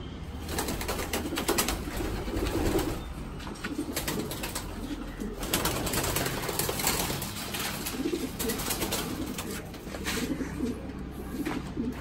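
Racing pigeons cooing, a string of low repeated coos, under frequent rustling and knocking noises that are loudest about two seconds and about seven seconds in.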